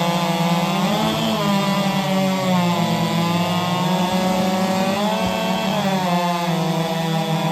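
Several modified 4-cubic-inch-class two-stroke racing chainsaws running flat out together, cutting through logs. Their pitch sags and recovers as the chains load up in the wood.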